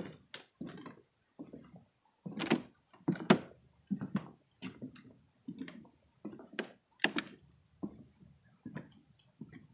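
Footsteps of a person walking on a trail, a short thud-and-crunch at each step, about one and a half steps a second.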